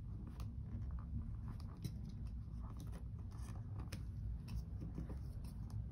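Faint rustling and scattered light clicks of budget cash envelopes being handled and moved from one binder into another.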